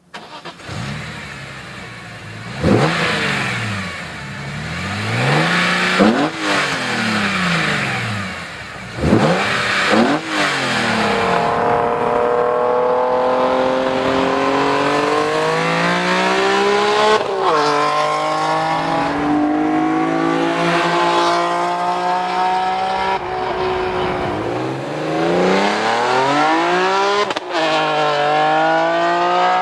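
BMW E46 M3's S54 straight-six, with a CSL-style carbon intake airbox, AP headers and muffler and no catalytic converters, revving in several quick blips. It then accelerates hard, the pitch climbing and dropping sharply at three upshifts.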